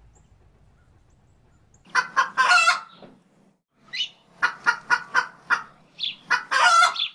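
Chicken calls: a long call about two seconds in, then a quick run of short clucks about four a second, ending in another long, loud call.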